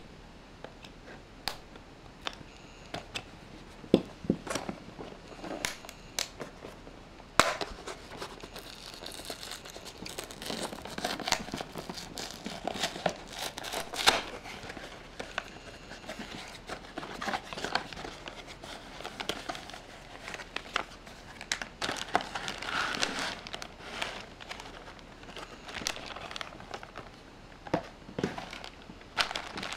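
A small cardboard toy box handled with scattered sharp clicks and taps. From about seven seconds in, a clear plastic bag crinkles continuously as it is handled.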